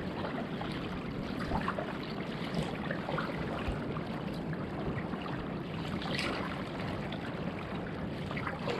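Water trickling and lapping steadily against a plastic kayak hull on calm sea, with a few small splashes.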